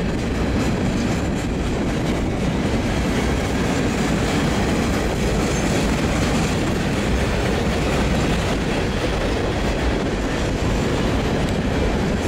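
Freight train cars rolling past on the mainline: a steady rumble of steel wheels on rail.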